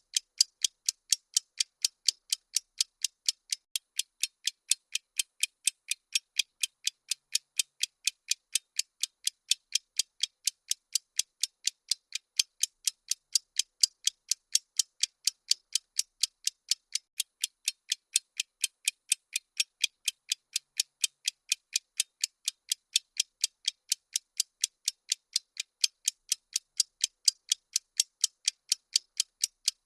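Steady, even clock-style ticking of a bomb countdown timer sound effect: short, crisp ticks, about three a second, with no other sound.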